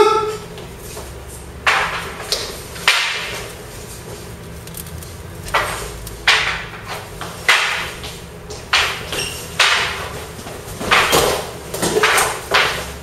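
Long wooden spear shafts clacking and knocking against each other in sparring: about a dozen sharp, irregular knocks with a short hall echo. The loudest comes right at the start and rings briefly.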